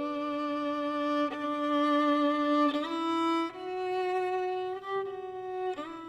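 Background music: a slow melody of long held notes, each changing pitch every second or two.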